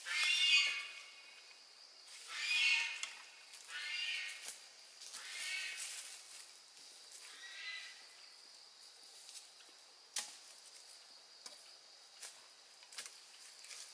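An animal calling five times, about every one and a half seconds, each call fainter than the last, over a steady high hum. A few sharp clicks follow in the second half.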